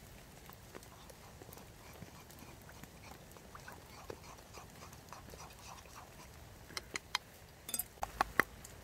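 Steady light background of rain and a small campfire with faint scattered crackles, then a quick cluster of sharp clicks and knocks near the end.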